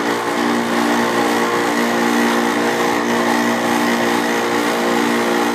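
Refrigerant recovery machine running steadily, its compressor and fan giving a constant hum with several even tones as it pulls the remaining refrigerant out of the system; the recovery is still under way, with pressures still dropping.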